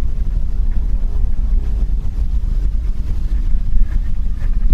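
Steady low rumble of wind buffeting the microphone of a body-worn camera.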